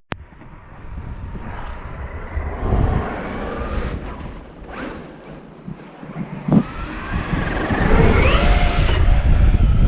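Electric RC monster truck's brushless motor whining, its pitch rising and falling as it revs, louder in the last few seconds, with wind rumbling on the microphone.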